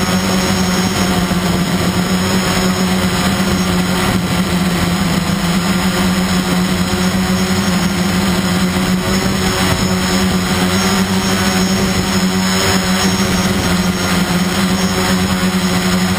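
Motor and propeller of a radio-controlled model aircraft, heard from a camera mounted on it: a loud, steady hum that holds one pitch, under a rush of air noise.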